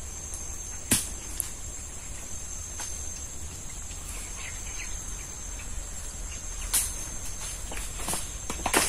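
Insects droning steadily in a high-pitched chorus, with a few sharp knocks: one about a second in and more near the end.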